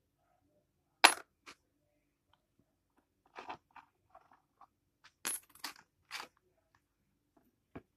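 Small metal coin clinking down with a brief high ring, loudest about a second in and again around five seconds in, amid lighter clicks and taps of handling and a plastic digital kitchen scale.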